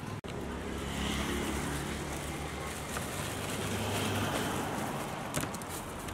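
Street traffic noise: a steady low hum of motor vehicles, with a few light clicks about five and a half seconds in.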